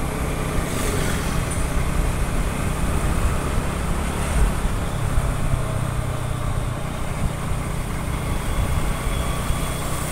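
Motor scooter running steadily while riding along a road, heard as a low, even rumble, with road traffic around it.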